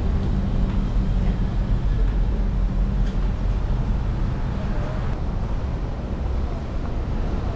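Vehicle noise: a steady low rumble with a humming undertone.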